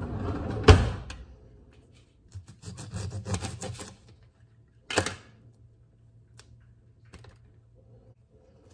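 A kitchen knife slicing through a lemon and knocking sharply on a plastic cutting board about a second in, then quick small clicks and rubbing as the lemon halves are handled, and a second sharp knock on the board about halfway through, the knife being set down.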